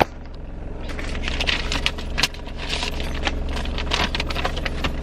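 A quick run of small clinks and rustles, small objects being handled and rummaged through, over the steady low hum of an idling car engine.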